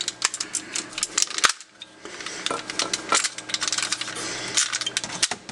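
Hard plastic parts of a Transformers Armada Jetfire toy figure clicking and knocking as its legs are folded and repositioned by hand. The clicks come in a rapid, irregular run, with a brief lull about one and a half seconds in.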